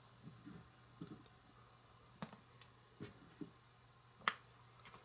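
Faint, scattered light taps and clicks as jalapeño strips are picked by hand off a small wooden cutting board and dropped onto a plastic plate, with the sharpest click about four seconds in.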